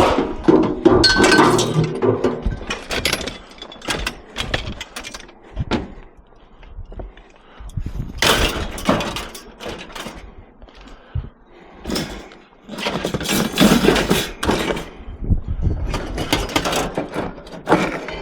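Scrap metal clanking and clattering as pieces are shifted and stacked on a loaded truck, in bouts of repeated knocks and scrapes with short lulls between them.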